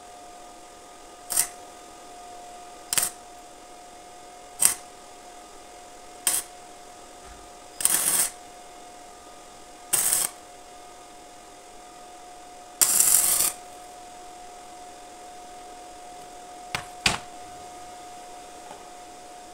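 Electric arc welding in short bursts, about nine of them, each under a second with a sizzling crackle, tacking bicycle frame tubes together; the longest burst comes about two-thirds of the way through, and two quick ones close together near the end. A steady faint hum sits underneath.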